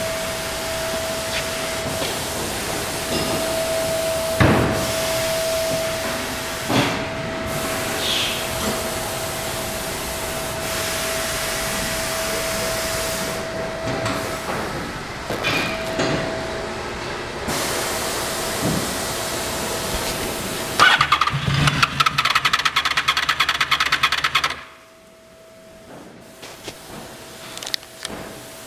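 Steady workshop background noise with a constant tone and occasional knocks. About three-quarters of the way in, the 2007 Honda VFR800 Interceptor's V4 engine is started on its electric starter: a loud, fast pulsing for about three and a half seconds that cuts off abruptly.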